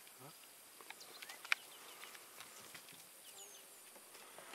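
Quiet bush ambience with faint bird chirps and a few soft clicks and taps.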